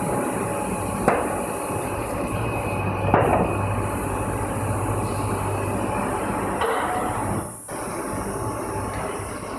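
PET preform injection molding machine running through its cycle: a steady hydraulic hum with two sharp mechanical clanks, about a second in and about three seconds in, as the mold and robot pickup arm move.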